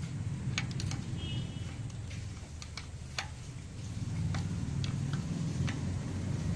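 Light metallic clicks and ticks, irregularly spaced, from a screwdriver, ring spanner and feeler gauge working a rocker-arm adjuster screw and locknut while valve tappet clearance is set. A low steady hum runs underneath.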